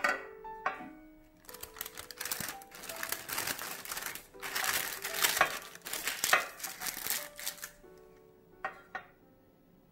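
Parchment paper crinkling and rustling as it is pressed and folded into a square metal baking pan, after a light knock near the start; soft piano music plays underneath.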